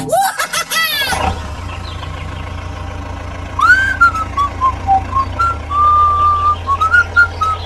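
Quick rising gliding tones, then a steady low engine-like hum that starts about a second in. Over the hum, from about the middle, comes a whistled tune of held and sliding notes.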